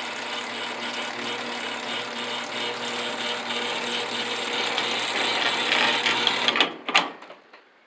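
Vintage Helpmate chain-drive garage door opener with a V-belt drive running steadily, with a hum and a chain and belt rattle as it moves the door. It stops about six and a half seconds in, with a couple of sharp clacks just after.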